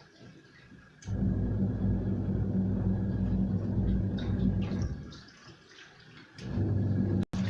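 Washing machine running its wash cycle with water churning in the tub. The motor's low hum and the sloshing run for about four seconds, stop for about a second and a half, then start again, the stop-and-restart pattern of an agitator reversing direction.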